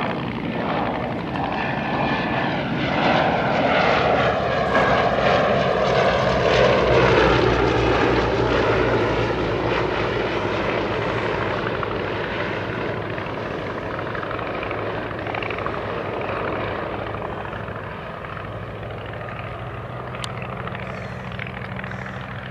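Two Westland Lysander IIIAs with Bristol Mercury nine-cylinder radial engines flying past together. The engine and propeller sound swells to a peak about a third of the way through and drops in pitch as they pass, then slowly fades away.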